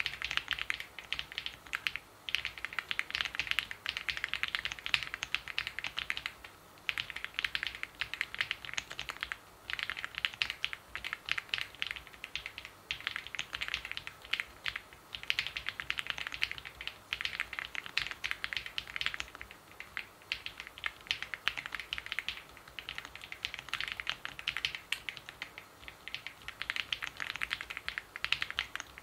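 Typing on an Owlab Spring mechanical keyboard with an acrylic case: rapid, dense key clicks in runs of a few seconds, broken by short pauses between words and phrases.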